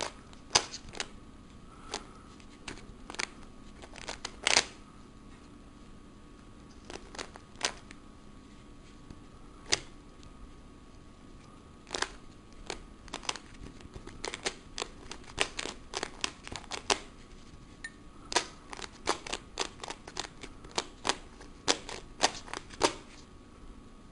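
A plastic 3x3x3 Rubik's cube is being twisted by hand: layers turn with sharp clicks and clacks that come in irregular clusters, with pauses between them. The turning gets busier about halfway through. The cube is stiff and catches, even with petroleum jelly added.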